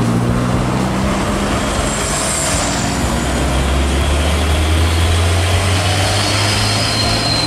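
Hino car-carrier truck's diesel engine running as the loaded truck drives past, over steady road noise; its deep note drops lower about halfway through.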